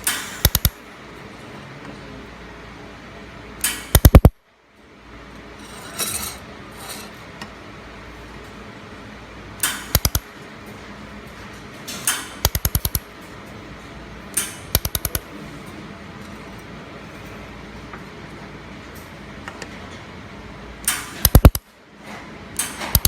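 Handheld laser welder firing in short bursts: clusters of three or four sharp snapping clicks every few seconds over the steady hum of the machine's cooling fan.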